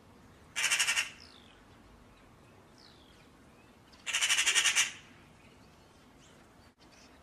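Eurasian magpie chattering: two bursts of a harsh, rapid rattle, one about half a second in and a longer one about four seconds in. Faint chirps of small birds come between them.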